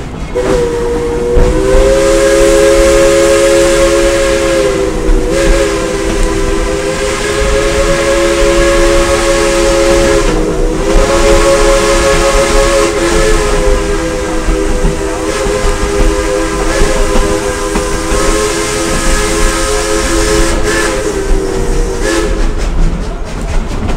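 Steam locomotive's chime whistle blowing one long, loud chord of several notes, with two brief dips about five and ten seconds in, cutting off shortly before the end, over the rumble of the moving train.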